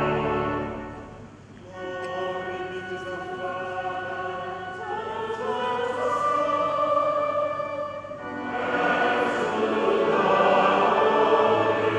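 Church choir singing a hymn in long held chords, with a short break between phrases about a second and a half in and another near eight seconds, swelling louder after it.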